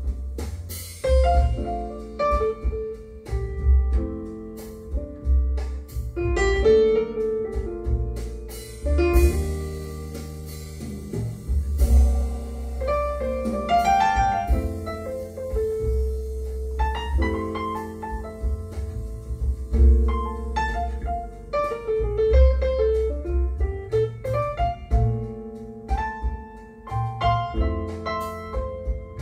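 Piano music with a deep bass line, played back through a pair of Totem Arro small floor-standing loudspeakers and picked up in the room.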